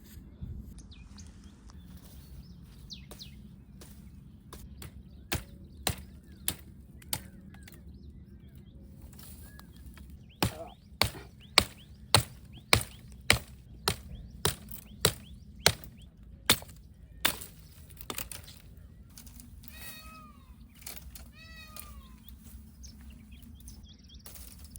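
Axe chopping into mesquite (English babul) branches: four strokes, a pause, then a run of about a dozen strokes at roughly two a second. Near the end a short falling animal call repeats several times.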